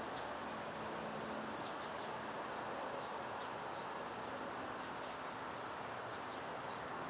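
Steady outdoor background hiss with a few faint, short high chirps scattered through it, and a faint low hum that fades out about a second and a half in.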